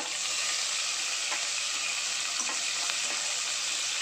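Sliced onions sizzling steadily in hot oil with mustard seeds, cumin and crushed garlic in a pressure cooker, stirred with a metal slotted spoon that scrapes the pan lightly a few times.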